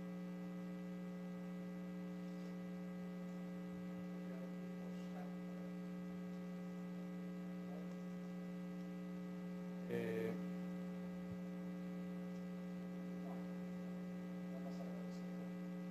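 Steady electrical mains hum with a ladder of higher overtones, and one brief faint sound about ten seconds in.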